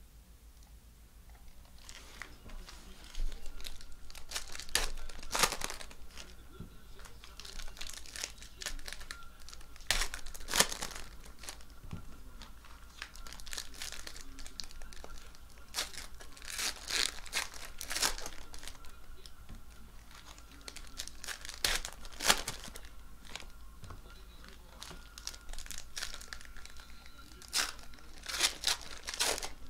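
Foil trading-card packs (2019 Panini Prizm football) being torn open and crinkled by hand: repeated short bursts of tearing and crumpling wrapper, starting about two seconds in.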